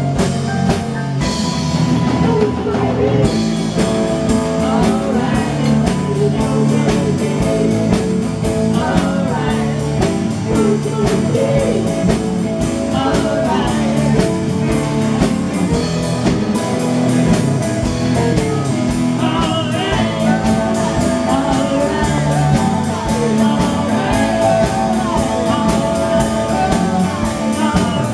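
Live rock band playing: acoustic and electric guitars, keyboard and drum kit, with a man singing lead. The cymbals come in on a steady beat a few seconds in.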